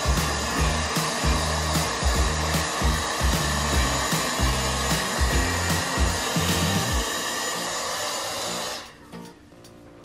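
Jellyfish pet blow dryer running with a steady blowing hiss, then switched off suddenly about nine seconds in. Background music with a steady beat plays underneath.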